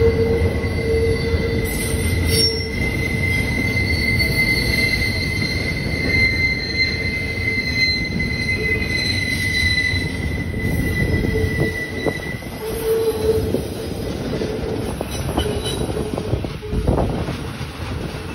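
Freight train's steel wheels squealing against the rails on a curve as double-stack container well cars roll past: a steady high squeal that fades out about two-thirds of the way in, over the low rumble of the wheels on the track. A single clank comes near the end.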